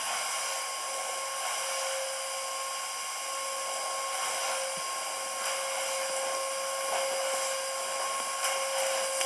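Canister vacuum cleaner running steadily while being pushed over a rug: an even rushing hiss with a steady high whine.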